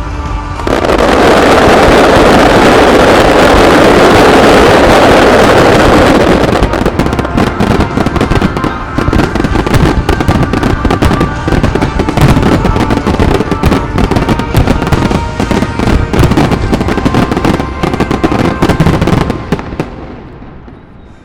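A fireworks barrage: a dense, continuous wall of bursts for the first several seconds, then rapid cracks and bangs, many per second, that fade away near the end. Music plays underneath.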